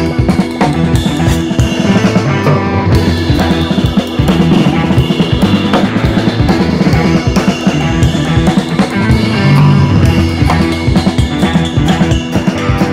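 Background rock music with a drum kit beat, bass drum and snare, over guitar.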